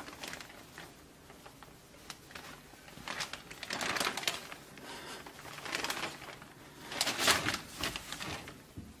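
Thin plastic shopping bag rustling and crinkling in irregular bursts as a small monkey rummages inside it and tugs clothes about, loudest about four seconds in and again near seven seconds.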